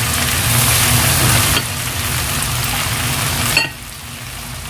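Pork, carrot and potato filling sizzling in a hot pan just after a splash of water is added to cook it through. The sizzle is loudest for the first second and a half, then eases, and drops off abruptly about three and a half seconds in.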